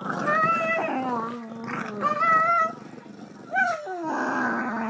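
A pug growling in play over a stuffed toy: wavering, whiny growls in two bouts, with a short pause a little past the middle.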